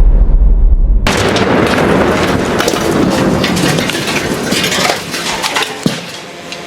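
Tannerite explosion: a heavy low boom rumbling through about the first second, then a loud crackling, rushing noise that slowly fades over the next few seconds.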